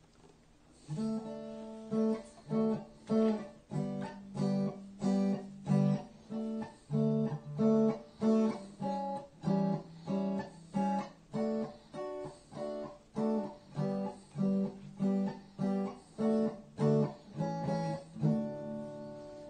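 Background music: an acoustic guitar strumming chords in a steady rhythm, about one and a half strums a second, ending on a chord left to ring near the end.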